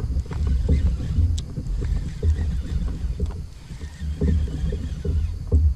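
Uneven low rumble of water and hull noise on a fishing kayak, coming in gusts, with scattered light clicks and knocks as the angler handles his spinning rod and reel.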